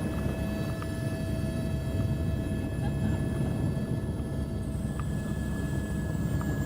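Helicopter running: a steady low rotor and engine rumble under a high, steady turbine whine, which shifts slightly in pitch a little over four seconds in.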